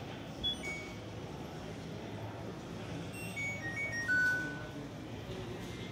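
Electronic beeps from a washing machine's control panel: two short high beeps near the start, then a short chime of notes stepping down in pitch about three to four and a half seconds in.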